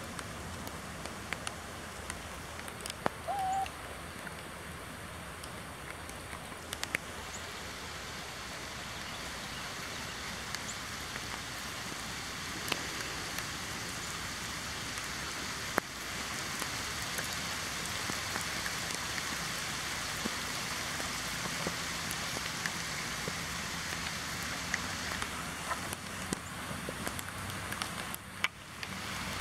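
Steady rain falling on grass, with scattered sharp drop ticks; it grows louder about halfway through. A brief high squeak sounds about three seconds in.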